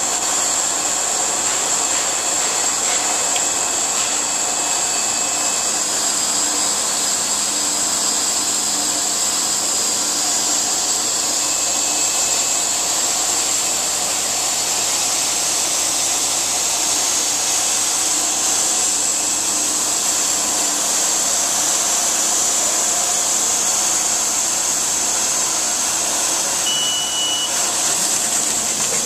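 Horizontal flow-wrapping machine and its infeed conveyor running continuously, a steady mechanical drone with a strong high hiss that does not change.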